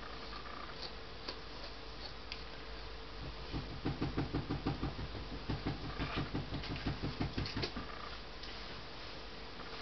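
A grooming brush drawn quickly through a long-coated dog's fur: a run of rapid strokes, about five a second, starting a few seconds in and stopping near the end, over a steady hum.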